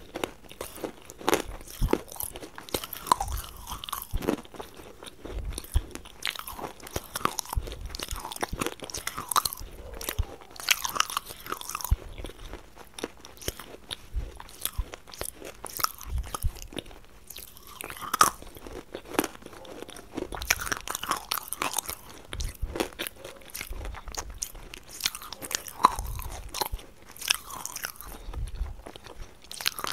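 Close-miked crunching and chewing of hard, dry clay chunks in the mouth: a dense run of irregular sharp crackles and crunches, several a second, with soft chewing between them.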